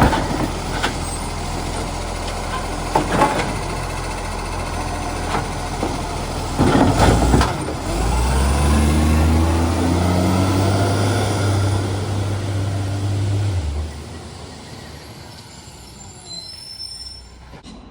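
Garbage truck engine with an exhaust leak: it runs with a few sharp knocks, then a loud burst of noise about seven seconds in. The engine then pulls hard with a strong, steady note for about six seconds and drops off suddenly, leaving a fainter fading rumble.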